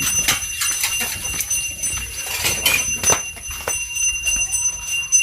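Metal utensils clinking and knocking against a metal cooking pot in irregular strikes, with a faint high ringing that carries on under them.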